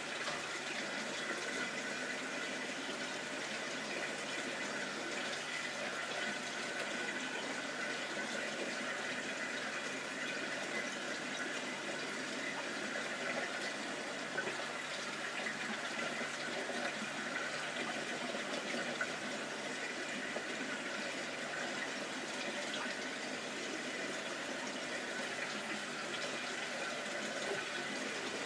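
Steady bubbling and splashing of air-driven aquarium filters, air rising in streams of bubbles through the water of goldfish tanks.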